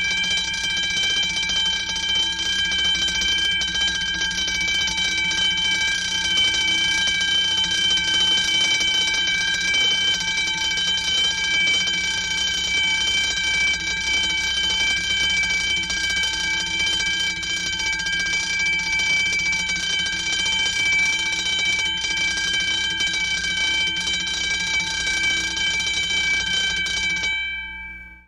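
Electric fire alarm bell ringing continuously, a steady metallic ring that dies away quickly near the end.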